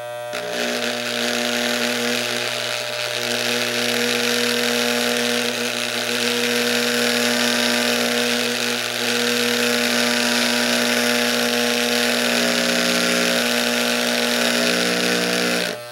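Wahl Designer hair clipper buzzing steadily while pressed against the bottom of a plastic container, shaking fishing-reel bearings soaking in degreaser so they come clean faster. The clipper's hum is overlaid by a loud rattling hiss from the container, and the buzz cuts off near the end.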